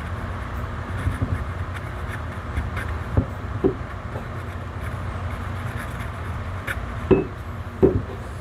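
Steady low hum in the room, with a few light knocks and clicks as the steel axle and its sprocket are handled while retaining compound is dabbed on.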